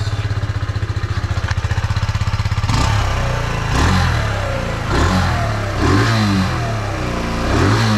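Kawasaki Z125's single-cylinder four-stroke engine on its stock exhaust, idling steadily, then revved in four short blips starting about three seconds in.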